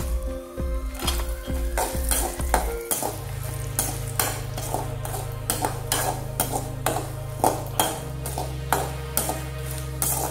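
A perforated steel ladle stirs and scrapes in a metal kadai in quick repeated strokes, over hot oil sizzling as curry leaves, cashews and dried red chillies fry.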